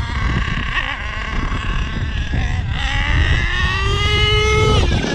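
The small .46 nitro engine of an HPI Savage X 4.6 RC monster truck revving under throttle. Its pitch climbs steadily for a couple of seconds, then falls away sharply near the end. The truck is held in second gear and not shifting into third.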